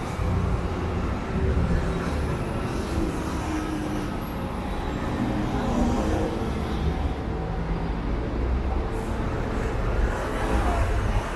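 City street ambience: a steady low rumble of road traffic, with no single vehicle standing out.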